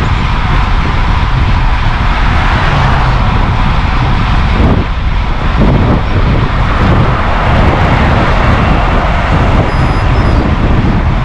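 Wind blowing hard over the microphone of a camera carried on a moving bicycle: a loud, steady, deep rushing that hardly changes.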